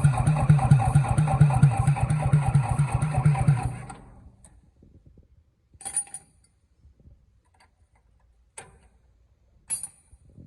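Old Komatsu bulldozer's diesel engine cranked over on the starter without firing, with fast, even pulses, while fuel is pushed through the loosened injector lines to bleed out the air. The cranking stops about 4 seconds in, and three sharp clicks follow.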